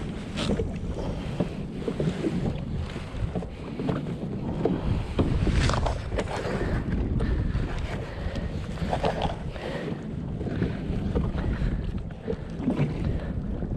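Wind buffeting the microphone over water sloshing around a kayak, with a few short splashes.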